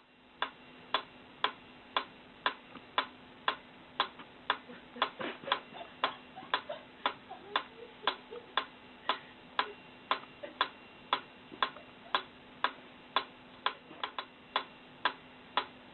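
Mechanical pyramid metronome ticking steadily, about two ticks a second.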